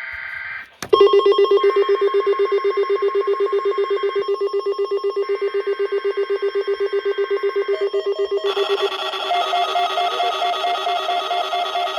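Weather radio receiver sounding its alert alarm, a rapid trilling beep of about five pulses a second, signalling an incoming Environment Canada broadcast. About eight and a half seconds in it changes to a higher, busier warble.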